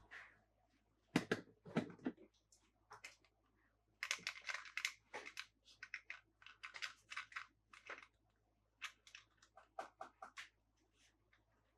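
Hands unboxing and handling small toy cars: a run of irregular small clicks, taps and crinkling rustles of plastic packaging, busiest in the middle.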